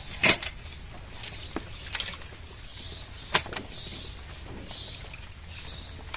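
Pieces of wet fish being set down on a steel tray, giving a few knocks and clinks of metal. The loudest come just after the start and about three seconds in, over a low steady hum.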